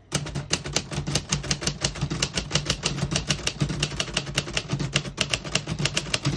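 1948 Royal Quiet De Luxe manual portable typewriter typing fast: a steady stream of sharp typebar strikes on the platen, about seven a second, with the keys working cleanly and none sticking.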